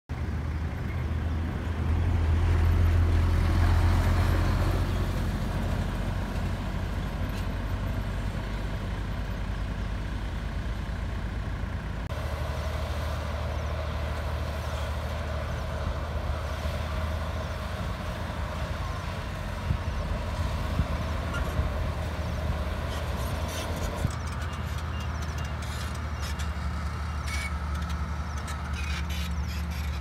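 Diesel engines of earthmoving machines, an excavator and a bulldozer, running with a steady low drone that swells louder for a couple of seconds near the start. Several short, sharp knocks in the second half.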